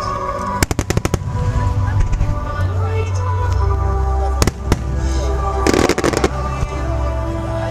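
Fireworks bursting over music: a quick string of cracks about half a second in, two sharp bangs a little after four seconds, and a dense crackling cluster near six seconds.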